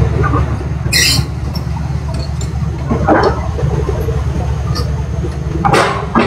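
Low, steady diesel rumble of a tracked hydraulic excavator working. A short sharp clatter comes about a second in, and brief voices are heard around three and six seconds in.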